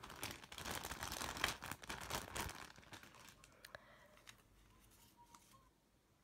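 Clear plastic packaging bag crinkling and crackling as it is handled, busiest in the first two and a half seconds, then a few faint rustles and clicks before it goes quiet.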